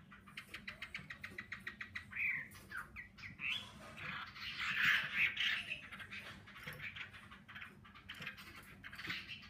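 Chinese hwamei singing: runs of rapid repeated notes, a few whistled slides in pitch, and a louder, denser stretch of song about halfway through.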